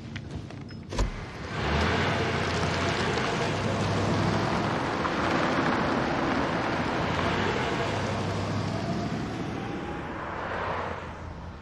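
Car in city traffic: a sharp thump about a second in, then a loud, steady rush of engine and road noise that fades out near the end.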